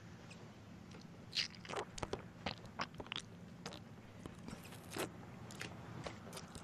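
A man chewing a mouthful of food, with a run of irregular, sharp crunching clicks.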